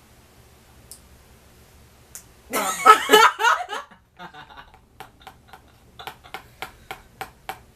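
A loud, short burst of a person's voice about two and a half seconds in, with no words in it. From about five seconds in, a run of light, evenly spaced clicks follows, about three a second.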